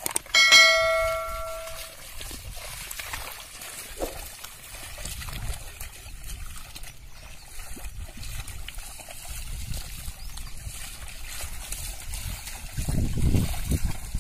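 Water and mud sloshing and trickling as a pair of bullocks drag a plough through a flooded paddy field. A single bell-like chime rings near the start, the loudest sound, dying away within about two seconds.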